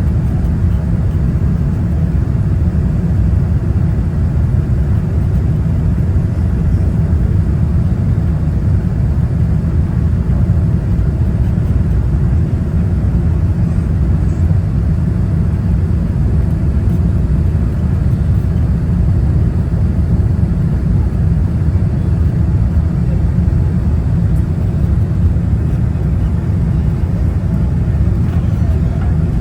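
Steady low rumble of engine and airflow noise inside the cabin of a Boeing 787-9 airliner on final approach, shortly before touchdown.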